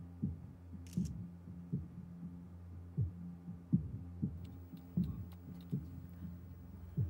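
Suspense music of a drama score: a low heartbeat-like pulse, two thumps about every two seconds, over a steady low drone.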